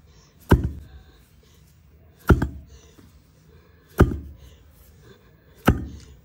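Metal pestle pounding pearl millet in a tall metal mortar: four heavy thuds, one every second and a half or so, each dying away with a low ring. The grain is being pounded to crack it for bajra khichdi.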